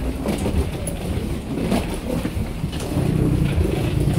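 Rolling suitcase wheels rumbling and clacking over the jet bridge floor, mixed with footsteps on the bridge.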